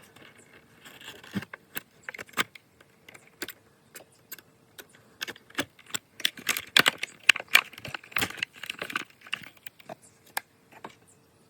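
Small plastic toys and their packaging being handled: a run of sharp clicks and rattles, busiest in the middle, over a faint steady hum.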